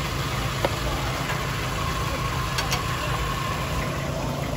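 A steady low engine rumble, like a motor idling, over a general market hubbub, with a couple of light clinks: one about half a second in and another near the middle.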